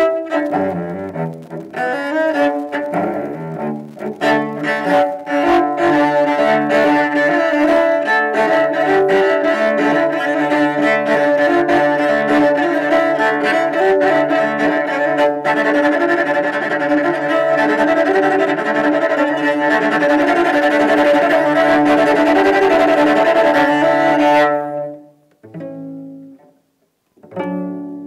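Solo cello bowed with fast, driving strokes over ringing sustained notes, which stops abruptly about twenty-four seconds in.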